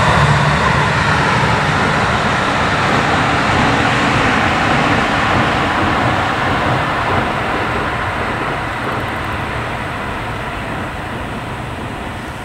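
JR Tokaido Line electric train crossing a steel truss railway bridge: a steady, loud running noise that slowly fades as the train moves away.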